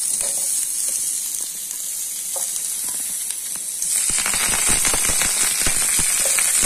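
Sliced onion sizzling in hot oil in a frying pan. About four seconds in, curry leaves go into the oil and the frying grows louder, with dense crackling.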